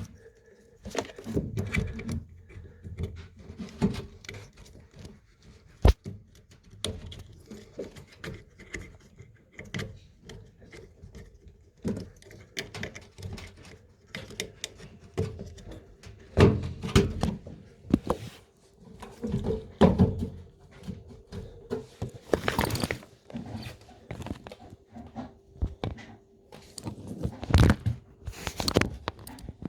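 Irregular thunks, clicks and knocks of hands handling plastic and metal parts while working on a washing machine, with a faint steady hum underneath.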